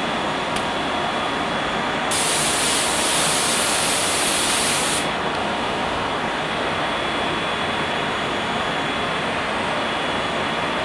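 MultiCam 1000 CNC router running with a steady machine noise from its vacuum hold-down blower and spindle. About two seconds in, a hiss of air joins it for about three seconds and then cuts off.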